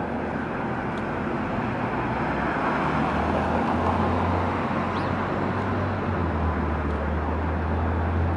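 A rescue ambulance's engine running as the rig pulls out, over steady street traffic noise; the low engine hum grows louder about four seconds in and again about six seconds in.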